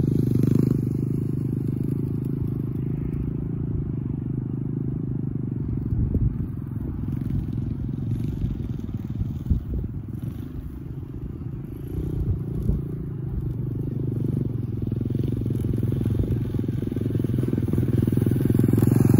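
Oil-cooled 140cc pit bike engine running as the bike is ridden away and back again. It is loud at first, quieter while the bike is far off, and grows louder near the end as it comes closer, with a few knocks in the middle.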